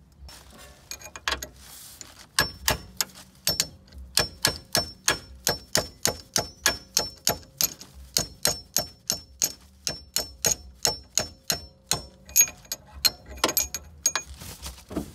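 Hammer striking a steel wrench held against a steering rack bushing, driving the old press-fitted bushing out of the rack mount: a long run of sharp metallic blows, each with a short ring, about two to three a second, after a few lighter taps at first.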